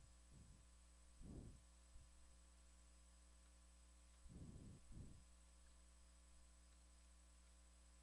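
Near silence: a steady low electrical hum on the recording, with a few brief soft low puffs about a second in and again around four and five seconds.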